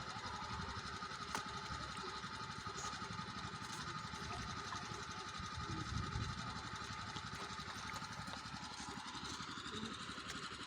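A small engine running steadily at an even idle-like pace.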